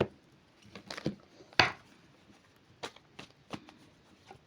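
A deck of fortune-telling cards being handled: several short, sharp card snaps and slaps at irregular intervals, the loudest about one and a half seconds in.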